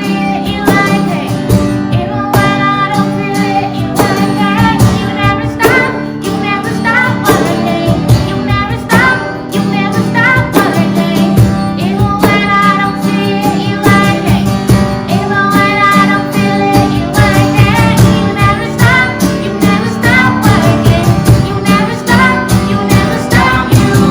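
Worship band music: voices singing a melody over guitar and other instruments, with a steady beat.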